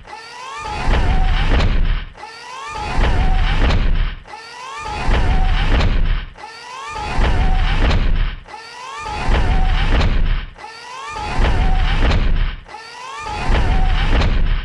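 AT-TE walker sound effect walking in a loop: a heavy, low stomp about every two seconds, each followed by a whirring mechanical servo whine that slides in pitch and fades before the next step. About seven steps.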